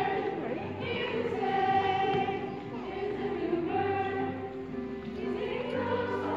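A group of voices singing in chorus over instrumental accompaniment, with long held notes.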